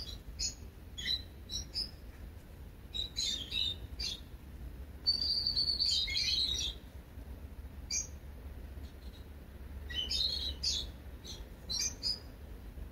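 Small birds chirping in short high calls, with a longer twittering phrase about five seconds in and another quick run of chirps around ten seconds.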